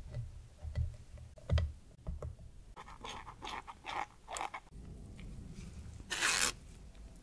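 A silicone spatula scraping and pressing batter through a stainless fine-mesh sieve: a few soft knocks at first, then a run of quick scrapes, and a longer, louder rasp of the sieve near the end.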